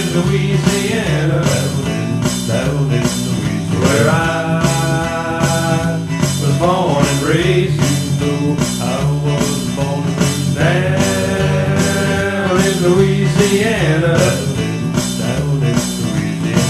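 Band music with a steady beat of about two a second and a lead line that bends up and down in pitch, with no words sung.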